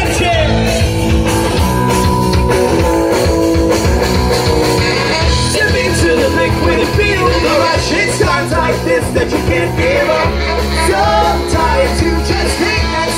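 Live rock band with saxophones, trombone, electric guitar and drums playing an upbeat song, loud and steady.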